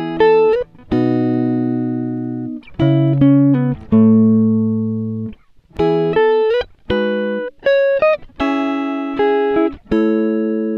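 Background music: a plucked string melody of single ringing notes that fade one after another, some of them sliding up in pitch.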